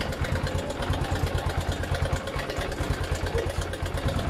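Honda CB110 single-cylinder four-stroke engine idling with an even pulse and a light ticking clatter. The mechanics trace the clatter to the timing chain tensioner arm, which flicks because its spring is too soft.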